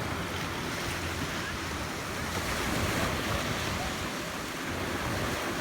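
Sea waves washing in, with wind on the microphone; the surf swells about halfway through.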